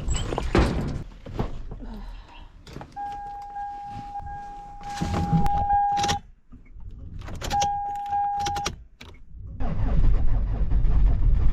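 Keys and door handling in a diesel car, then a steady warning tone from the dashboard that sounds twice as the ignition key is turned, with its glow-plug pre-heat before starting. Near the end the diesel engine starts and runs with a low, steady rumble.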